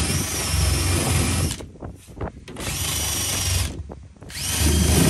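Cordless drill spinning a wire cup brush against the aluminum hull of a jon boat, scouring the rivet seams to prep them for sealer. The whirring cuts out twice, about a second and a half in and again near four seconds, and starts up again each time.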